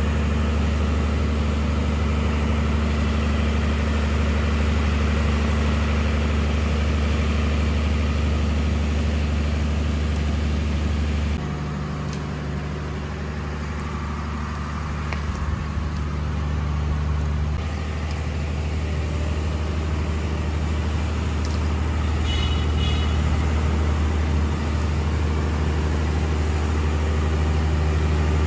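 Steady low drone of an idling engine. It shifts in tone from about eleven seconds in and settles back about six seconds later.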